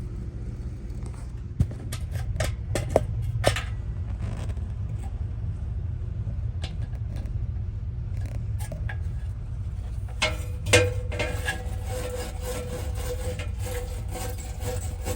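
A few sharp clicks and knocks of metal water-heater burner parts being handled over a steady low rumble; about ten seconds in, a steady mid-pitched tone with a rapid clatter begins.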